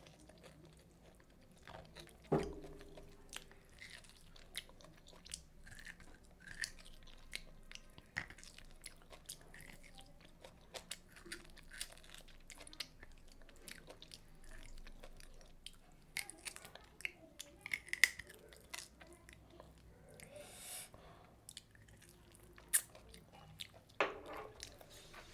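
Close-miked chewing and crunching of food, a steady run of small wet clicks and crackles. There are louder sharp knocks about two seconds in and near the end.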